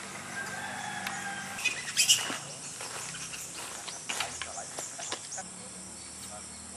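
A rooster crows once near the start, followed by a run of short, sharp squawks and clicks that are loudest about two seconds in and again a little after four seconds.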